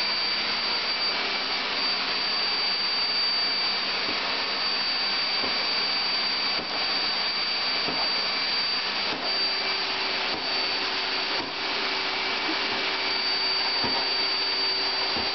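Canister vacuum cleaner running steadily, a dense rushing noise with a thin high whine, its floor nozzle pushed over a wooden floor with a few light knocks. About nine seconds in a lower steady hum joins the sound.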